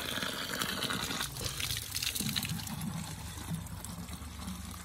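Water from a natural spring spout running out of a pipe and pouring into a plastic bottle, filling it.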